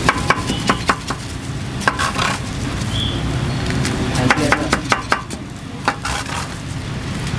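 Irregular knocks and scrapes of a utensil on a flat-top griddle as kebab meat is chopped and worked, in clusters with a dense run about halfway through, over a steady low rumble.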